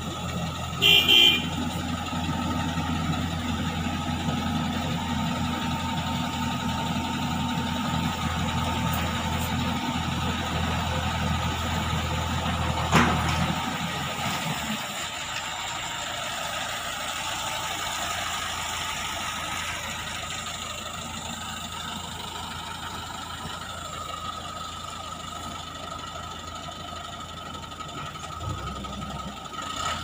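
Eicher tipper truck's diesel engine running steadily while the hydraulic bed tips its load of soil; about halfway through the deep engine note drops away and the running settles lower. A short, loud horn toot about a second in.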